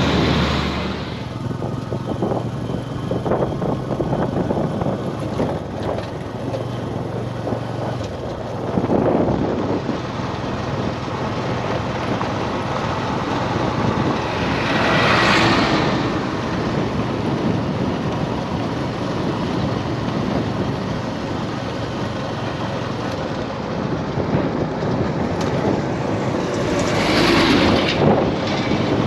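Steady road traffic noise, with vehicles swelling up and fading away as they pass close by several times.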